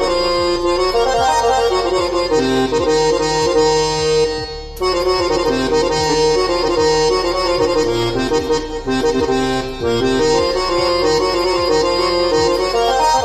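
Casio CT-X arranger keyboard playing a melody of held notes on a layered oboe-and-harmonium voice, giving a reedy, harmonium-like sound. There is a brief break about four and a half seconds in.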